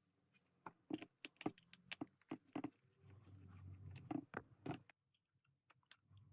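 Faint, irregular small plastic clicks and taps from a PS5 DualSense controller, several a second at first, then sparser with a faint hum about three seconds in.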